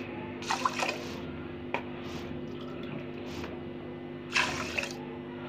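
Water poured from a bowl into an aluminium pot of soaked rice: two short splashes, about half a second in and again near the end.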